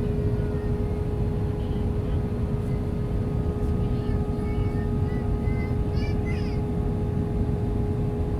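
Steady cabin roar inside an Airbus A320 with IAE V2527E-A5 engines on approach, with a steady hum running through it. Faint voices in the cabin briefly rise over it around the middle.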